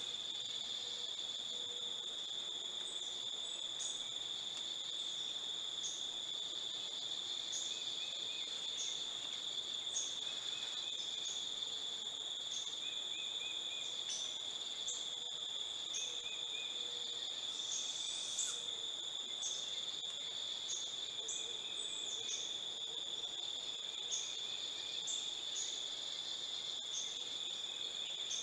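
Steady high-pitched drone of insects in the trees, unbroken throughout, with short faint chirps now and then.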